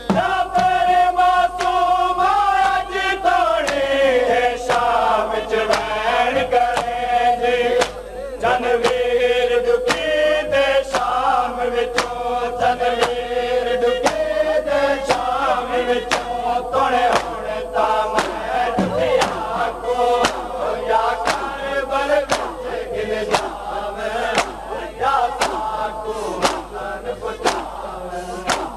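Male voices chanting a Saraiki noha, a Shia lament, in long held, gliding notes, over a regular beat of sharp slaps from mourners' chest-beating (matam).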